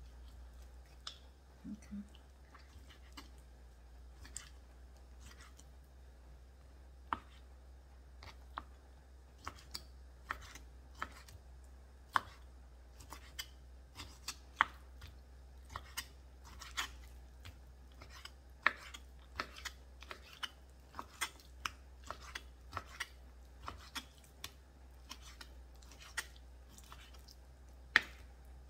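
Kitchen knife slicing raw chicken breast into strips on a wooden cutting board: irregular sharp taps of the blade meeting the board. The taps are sparse at first and come about two a second from roughly a third of the way in.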